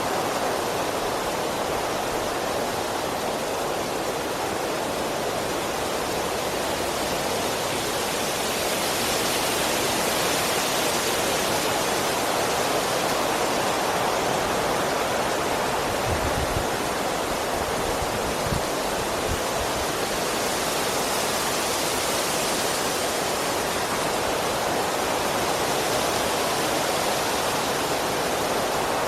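Strong wind blowing through trees: a steady rushing of leaves and branches that swells and eases in gusts, with a few brief low thumps a little past the middle.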